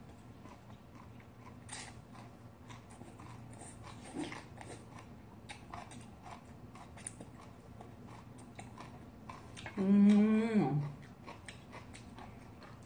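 Close-up eating sounds of bean sprout soup with rice: many small wet clicks of slurping and chewing sprouts. About ten seconds in, a short hummed voice sound holds a pitch and then drops.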